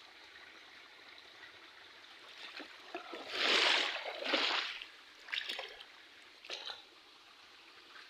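River water running in a faint steady trickle, with a few louder rushing or splashing bursts in the middle: a long one of about a second and a half, then two short ones.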